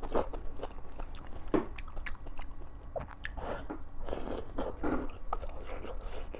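A person eating chaoshou, Sichuan wontons in chili oil, with wet smacks, slurps and chewing. Frequent short mouth clicks, with louder noisy mouthfuls about a second and a half in and again between three and five seconds in.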